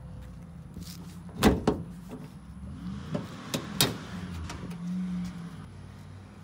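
Nissan 350Z's hood being unlatched and raised: a sharp knock about a second and a half in, then a few clicks and a louder clack near four seconds.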